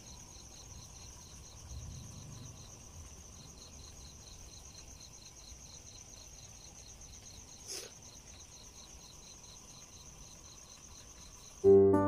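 Insects, crickets by their sound, trilling: one steady high trill and a second, lower chirp pulsing several times a second, which drops out briefly about two to three seconds in. A single sharp click comes about eight seconds in, and plucked music starts just before the end.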